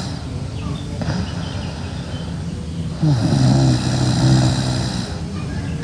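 A sleeping girl snoring loudly: a quieter breath, then about three seconds in a deep, buzzing snore that lasts about two seconds.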